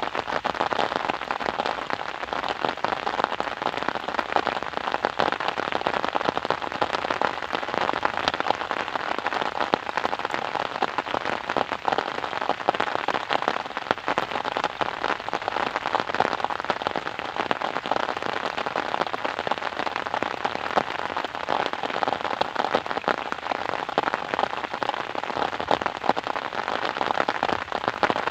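Steady rain, its drops pattering densely on a surface.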